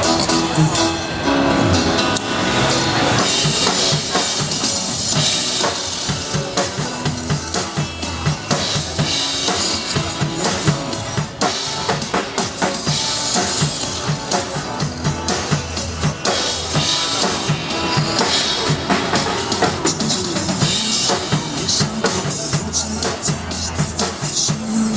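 Drum kit played with a steady, fast beat of bass drum, snare and cymbals.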